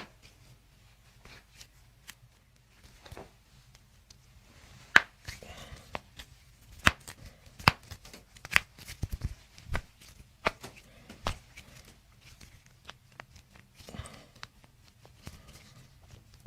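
A scattered run of sharp clicks and light taps from hands-on chiropractic treatment of a patient on a treatment table. Most come close together between about five and eleven seconds in.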